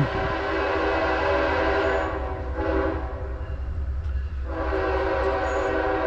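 Train horn blowing in long, steady blasts, a chord of several tones held with short breaks, over the low rumble of the passing train.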